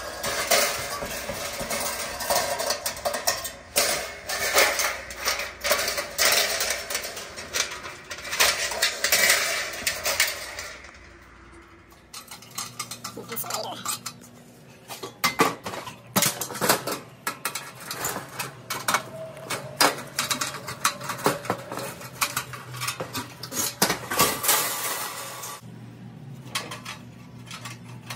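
Tools clinking and scraping on the sheet-metal heating element housing of a GE dryer as the old coil element is cut out and its ceramic insulators handled, in many short metallic clicks and knocks.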